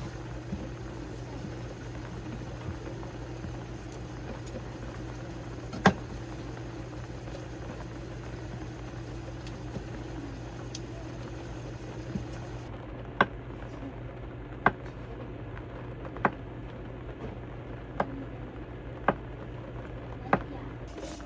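Rain on a camper van's roof, a steady hiss with a low hum under it. Sharp taps come once about six seconds in, then every second or two in the second half.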